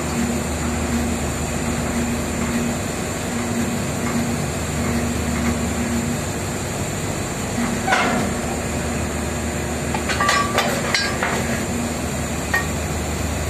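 Steady drone of drilling-rig machinery on the drill floor, broken by metal clanks and clinks of steel pipe-handling gear: one clank about eight seconds in, then a quick cluster of sharper clanks a couple of seconds later and a last one near the end.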